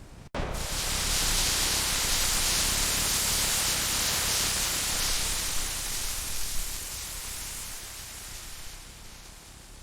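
Steady rushing hiss that starts abruptly under a second in and slowly fades away over the following seconds, with no beat or pitch in it.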